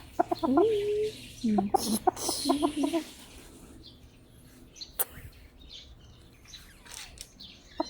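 Chickens clucking in quick runs of short calls for the first few seconds, then quieter. A single sharp click comes about five seconds in.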